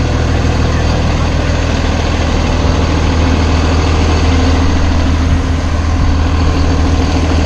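Engine of an open-air trolley bus idling close by, a steady low drone with no change in pitch.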